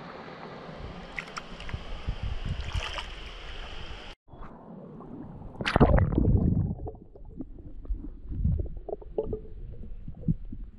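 Stream water rushing steadily, then, after a sudden break, a loud splash in the water about six seconds in, followed by sloshing and scattered knocks in shallow water.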